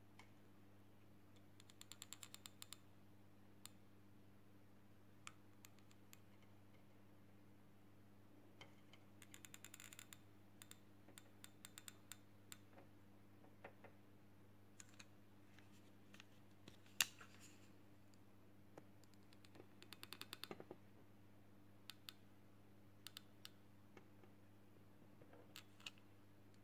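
Faint scattered clicks and short quick runs of ticking from a metal-tipped hand tool scraping and pressing on the hard plastic housing of a digital instrument cluster, with one sharper click about two-thirds of the way through, over a faint steady hum.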